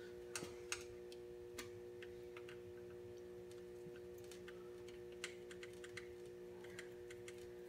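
Faint, irregular clicks and light metal taps from a hand tool working the hose clamps on a dirt bike's silicone coolant hoses as they are tightened, over a steady low hum.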